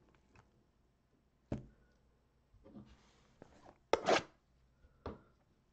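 Gloved hands picking up and handling a sealed cardboard Donruss mega box: a knock about a second and a half in, some soft rubbing, the loudest scrape and bump about four seconds in, and another knock near the end.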